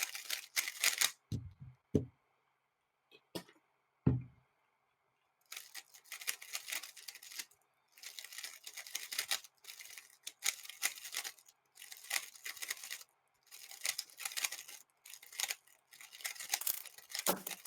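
Plastic 3x3 speedcube being turned fast during a solve: dense runs of sharp clicking turns in quick bursts with short pauses between them. A few separate knocks come first.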